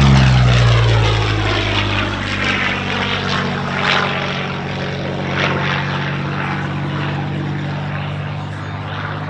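Curtiss P-40N Warhawk's liquid-cooled Allison V12 engine running at power on a low pass. Its pitch drops as it goes by at the start, then it holds a steady drone that slowly fades as the fighter pulls up into a loop.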